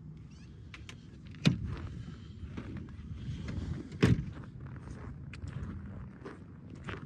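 Van door thumping shut twice, about two and a half seconds apart, with small clicks and rustling between.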